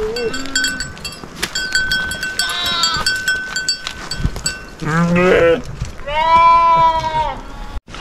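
Sheep in a flock bleating: a short wavering bleat a few seconds in, then two loud bleats near the end, the last one long and drawn out. A faint high ringing with light clinks runs under the first half.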